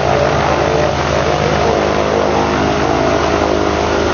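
Piston-engined propeller aircraft running at power, a steady, loud drone of engines and propellers.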